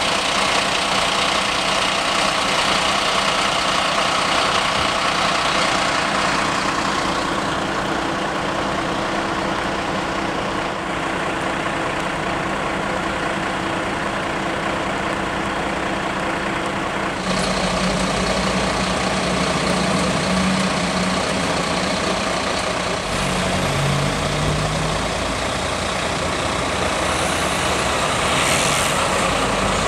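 Diesel engines of parked emergency vehicles idling steadily. The sound changes abruptly about seventeen seconds in to a deeper engine hum.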